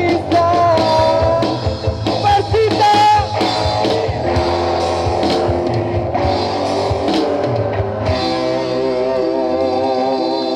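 Live rock band playing: electric guitar and drum kit, with a sung melody over the first few seconds before the music carries on without it.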